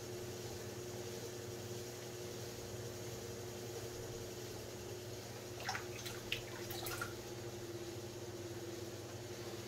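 Electric pottery wheel running with a steady hum. A little past halfway come a few short, wet squelches and clicks as wet hands and a sponge work the soft clay of a large bowl turning on it.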